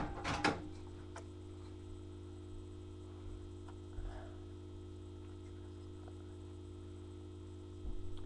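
Quiet room tone with a steady low electrical hum, broken by a few faint light clicks of Ahead drumsticks being handled during a twirl, the clearest about half a second in.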